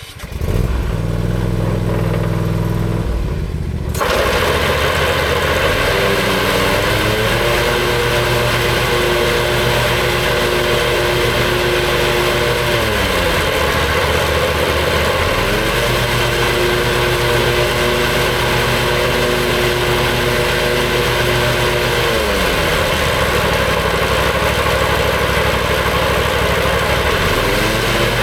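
Lawn mower engine starting, then running steadily. A few seconds in it grows louder and fuller, and its speed dips briefly and recovers about four times.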